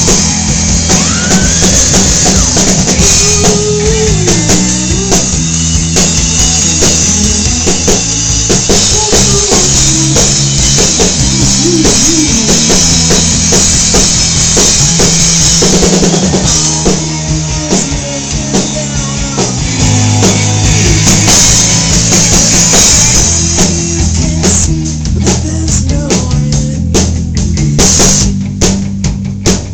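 A rock band playing in rehearsal: drum kit, bass and guitar together, in a low-quality recording with the top end cut off. Toward the end the music thins out and sharp drum hits stand out.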